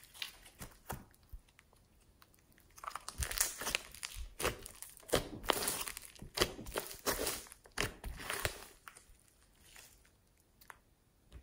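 Hands kneading and stretching a thick, glittery slime, giving sticky clicks, crackles and pops as air pockets in it squeeze and burst. The sound is sparse for the first few seconds, turns into a dense run of crackling from about three seconds in, and thins out again near the end.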